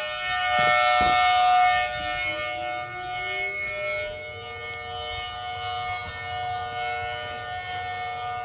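Civil-defence-style siren sound played through a pair of PA horn speakers, not loud. It holds a steady chord of several tones, with a lower tone rising slowly over the first few seconds. Two low thumps come within the first second.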